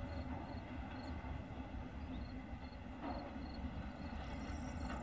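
Distant ChME3 shunting diesel locomotive, its six-cylinder diesel engine running with a steady low rumble as it draws a short rake of wagons. Short high chirps repeat a few times a second over it.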